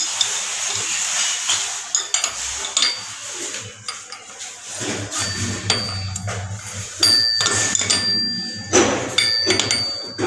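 A spanner clinking and scraping against a chrome angle valve and the nut of a braided connection hose as the nut is tightened. Irregular metallic clicks, some with short ringing notes, come more often in the second half.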